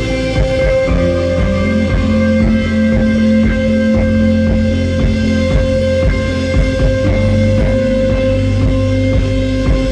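Instrumental rock music: electric guitar notes picked over a steady held tone and bass.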